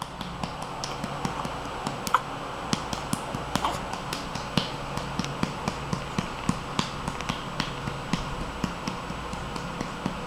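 A hand patting a baby's back to bring up a burp: light taps, unevenly spaced at about two or three a second.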